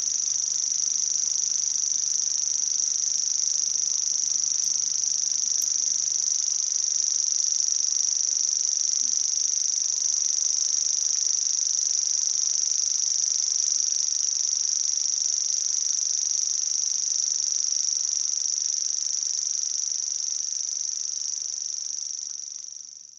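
Grasshopper warbler reeling: a strange, insect-like, high-pitched trill held without a break, fading out near the end.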